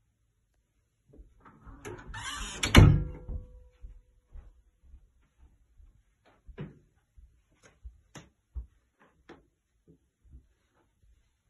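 A door being swung and shut, ending in a loud thud about three seconds in with a brief ring after it. Then a scatter of light knocks and taps.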